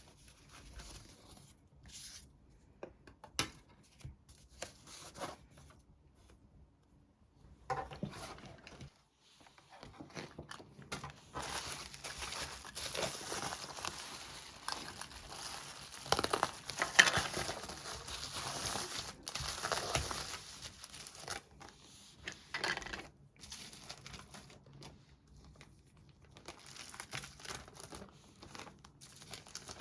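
Parcel packaging being torn open and crinkled by hand, in scattered short rustles at first, then a long busy stretch of tearing and crinkling through the middle before it thins out again.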